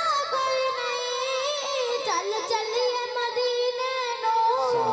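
A boy singing a Punjabi naat into a microphone, drawing out one long wavering note at the end of the refrain, with a brief dip and turn in pitch about two seconds in.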